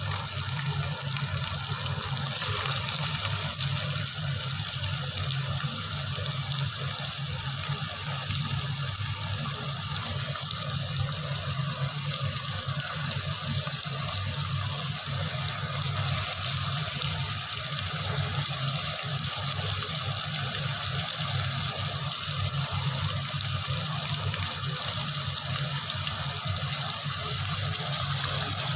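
Water running steadily from a tap, an even rushing hiss without a break.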